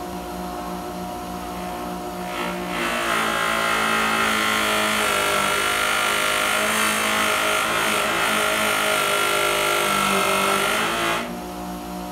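Pedestal buffer's motor running with a steady hum, its cloth buffing wheel spinning. From about two seconds in until near the end, a Mazda 13B eccentric shaft is held against the wheel for polishing, adding a loud, even hiss with a steady high tone that stops when the shaft is taken away.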